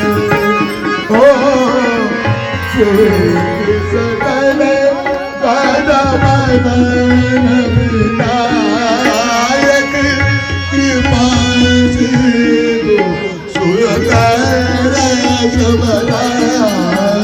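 Devotional bhajan: tabla keeps a steady beat under a sung melody with long, wavering held notes.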